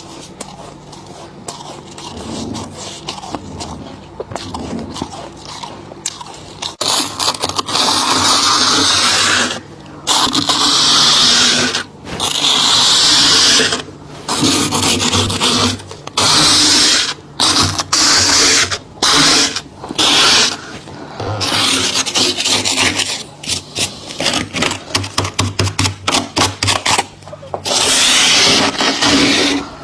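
Thick frost being scraped off the inside of a deep freezer: softer at first, then loud scraping strokes from about seven seconds in, long ones of a second or two followed by quicker short ones.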